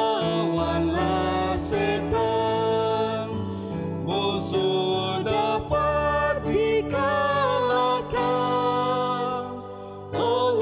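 A woman and a man singing a Malay-language Christian worship song together, with instrumental accompaniment.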